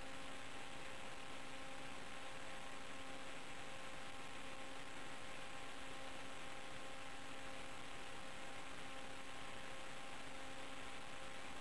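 Steady electrical hum over hiss, its flat buzzy tone never changing in pitch or level: noise on the FPV video link's recorded audio rather than the multirotor's motors.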